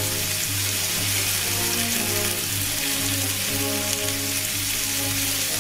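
Chicken yakitori skewers glazed with soy-mirin tare sizzling steadily on a hot ridged cast iron griddle plate, the sauce bubbling on the ridges. Background music plays underneath.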